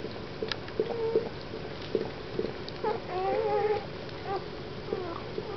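Newborn Weimaraner puppies squeaking and whimpering: a string of short, high, wavering calls, with a longer wavering whine about three seconds in.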